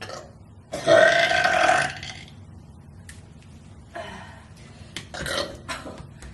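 A person forcing out a deliberate burp: one long, loud belch about a second in, lasting just over a second, followed by two shorter, fainter burps later on.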